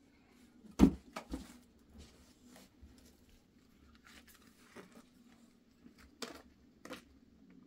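Handling noises as a cardboard box is picked up from a pile of household things and carried off: a sharp knock about a second in, a few lighter knocks and rustles just after, and two more knocks near the end, over a faint low hum.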